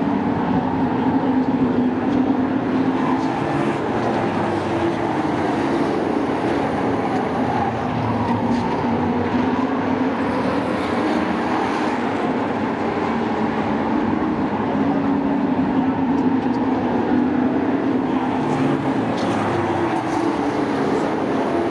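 A field of sport-class race trucks running laps on a short oval, their engines blending into a continuous loud drone whose pitch rises and falls as the trucks accelerate, lift and pass.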